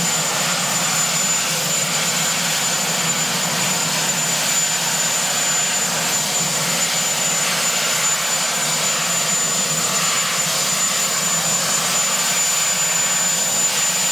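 Marine One, a Sikorsky VH-3D Sea King helicopter, running steadily on the ground: a constant dense rush of engine noise with a thin high whine over it.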